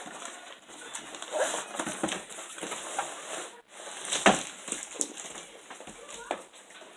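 Rustling and crinkling of a mailed package being handled, with scattered small clicks and one sharper knock about four seconds in.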